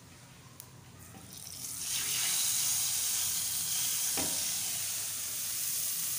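Hot tadka oil with fried spice masala sizzling as it is poured from a pan onto a pot of beef haleem. The sizzle swells up about a second and a half in and stays loud and steady.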